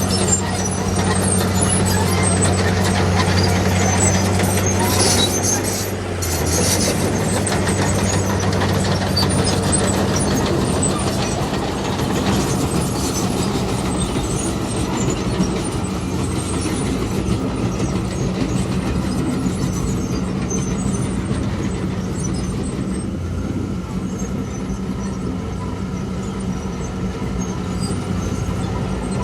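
Heavy diesel earthmoving machinery running steadily, with its engine note shifting about six seconds in.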